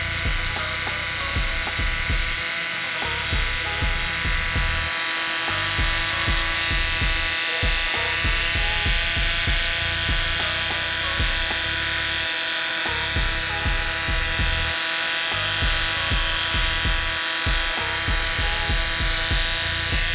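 1950s Remington Rollectric electric shaver running with a steady buzzing hum while it shaves a mustache, held against the upper lip. Irregular low bumping and rubbing sounds come through as the shaver is moved over the skin.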